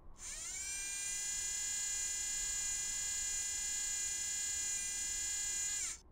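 Electric motor whine of the Curiosity rover in an animation's sound design. It spins up with a rising pitch, holds a steady high whine, then winds down and cuts off near the end.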